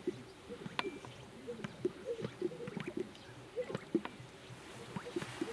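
Greater sage-grouse lek: a dense, overlapping run of short, low popping and cooing notes from strutting males. A single sharp click sounds about a second in.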